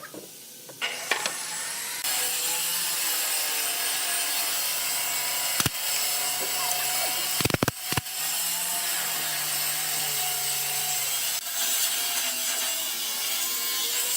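A power tool working wood, running steadily from about two seconds in, with a few sharp knocks around the middle.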